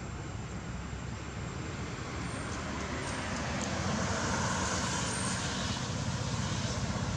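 Road traffic noise from a passing vehicle, a steady rush that swells a little about halfway through.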